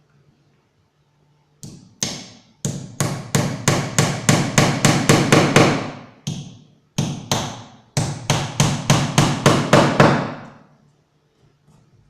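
Hammer striking in quick, ringing blows, about five a second, in two runs with a short break around the middle.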